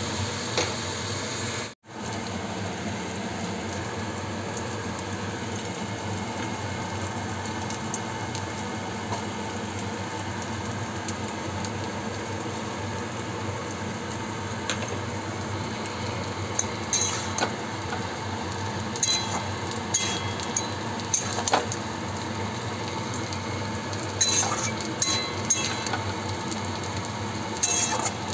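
Greens and pumpkin in mustard-poppy paste sizzling steadily in a steel wok on a gas burner. From about halfway on, a metal spatula scrapes and clinks against the wok as the dish is stirred.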